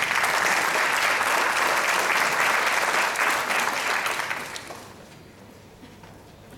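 Audience applauding, starting all at once and dying away about four and a half seconds in.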